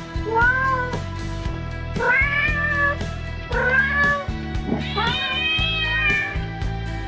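A cat meowing four times, each call rising then falling in pitch, the last one the longest, over background music with a steady beat.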